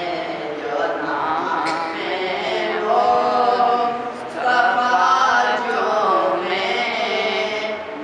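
A man's solo voice singing a naat, unaccompanied Islamic devotional poetry, in long held notes that waver and bend in pitch.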